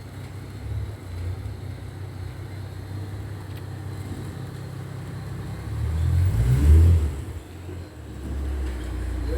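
Ford Mustang engine running with a low, deep rumble, revving up about six seconds in to its loudest point, then dropping back and settling into a steady rumble.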